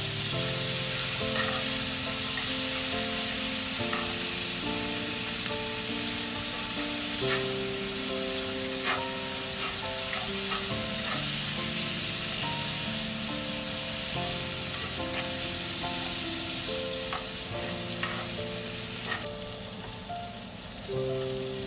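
Asparagus sizzling in hot oil in a cast iron skillet, with a few sharp clicks of metal tongs against the pan as the spears are turned. The sizzle thins out near the end. Soft background music with held notes plays underneath.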